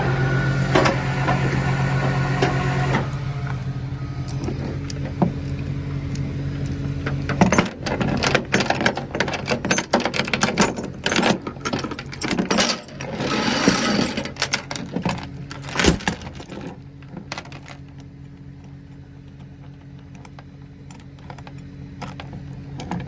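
Tow truck running with a steady low hum during winching, louder for the first few seconds. In the middle come several seconds of irregular metallic clanking and jingling.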